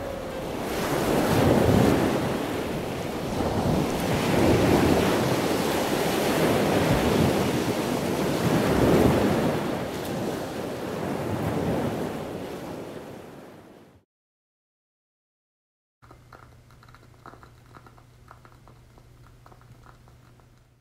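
Ocean waves surging and receding in slow swells, fading out about 14 seconds in. After a brief silence, a faint low hum with light crackling.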